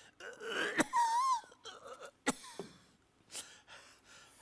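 A man moaning and whimpering in bed, as if ill with flu, with a brief high wavering whine about a second in. A couple of sharp clicks stand out.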